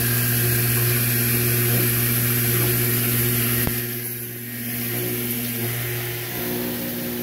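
Submersible well pump running submerged in a test barrel of water, giving a steady electric motor hum. A sharp click comes a little over halfway through, after which the hum is somewhat quieter.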